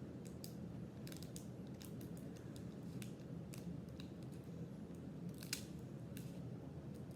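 Scattered light clicks and snaps of Pokémon trading cards being handled and sorted, with one louder click about five and a half seconds in, over a low steady hum.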